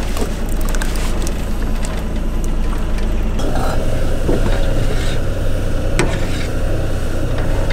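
Thick canned goulash soup poured from a tin into an aluminium pot, then stirred with a metal ladle, with a sharp click of the ladle against the pot about six seconds in. A boat's engine hums steadily underneath.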